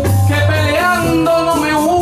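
A male trovador singing in Puerto Rican jíbaro style (música jíbara), accompanied by guitar.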